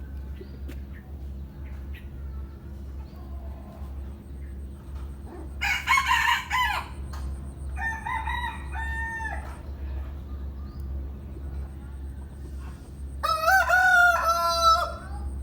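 Roosters crowing: one crow about six seconds in, a shorter broken call soon after, and a long, loud crow near the end.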